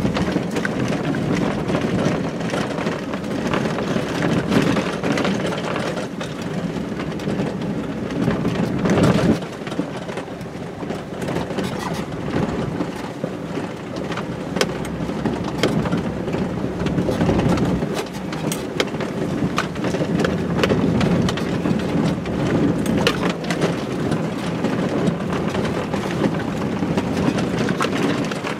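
Truck driving off-road across a rough grassy field, with a steady rumbling of the body and tyres broken by many small knocks and rattles as it bounces over the ground.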